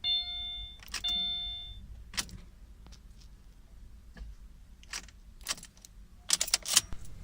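2017 Subaru Forester's dashboard warning chime dinging about once a second, stopping within the first two seconds, followed by a few scattered clicks and a short rattle of clicks near the end. No starter cranking or engine: the car is failing to start.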